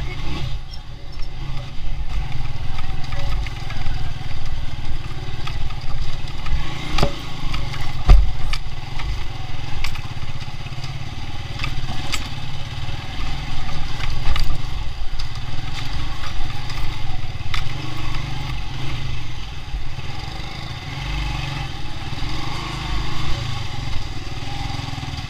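Small commuter motorcycle's engine running at low speed, heard from the rider's seat, with sharp knocks and rattles every few seconds as the bike rides over rough, rubble-strewn ground.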